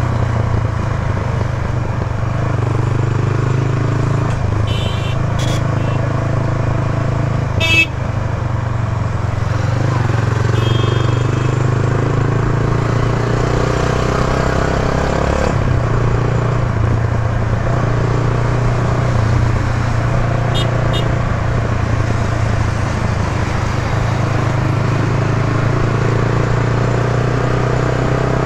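Yamaha YB125Z DX's single-cylinder four-stroke engine running steadily on the move, its note changing briefly a little past halfway. Several short horn toots sound over it.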